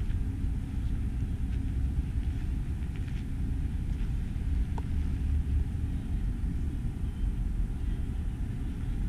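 Steady low outdoor rumble at an even level, with no distinct machine sound standing out.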